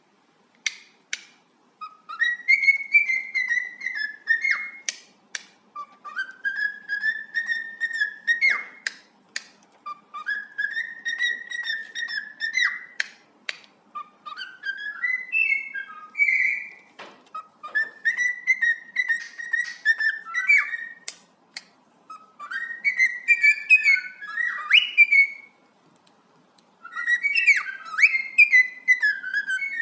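Cockatiel singing, whistling the same tune over and over in about seven phrases of two to three seconds each. Most phrases rise and then hold, and they are broken up by short sharp clicks.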